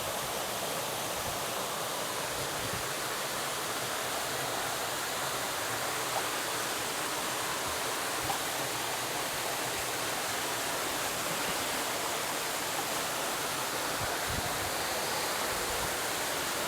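Steady rush of a small jungle waterfall: an even hiss of falling water with no let-up.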